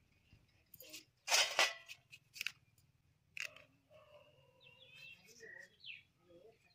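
Small knife shaving the rind off a whole watermelon: a few short scraping cuts, the loudest about a second and a half in.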